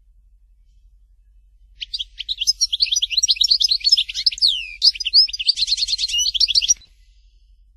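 European goldfinch singing one fast, tumbling song phrase of twittering notes, trills and down-slurred whistles. It starts about two seconds in and stops suddenly about five seconds later.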